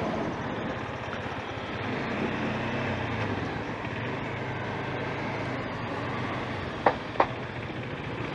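Bajaj Dominar 400 motorcycle being ridden: steady engine hum under a constant rush of wind and road noise, with two short sharp clicks about seven seconds in.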